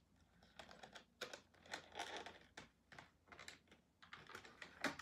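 Faint, irregular small clicks and rustles of an action figure's plastic packaging being handled as the twist ties holding the figure in are undone, with a sharper click near the end.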